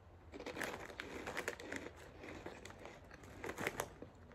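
Snack chip bag crinkling in irregular crackles, a few of them louder near the end.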